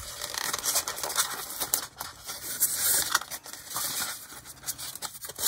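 Expanded-polystyrene foam packing being handled, with a plastic HO model locomotive shell rubbing against it as it is worked out of the foam. It makes an irregular scratchy scraping and crackling.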